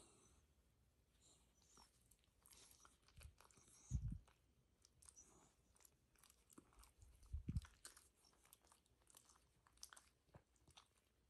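Quiet rustling and small ticks of a hand rubbing a Shiba Inu's cheek and chin fur, with two soft low thumps about four and seven and a half seconds in.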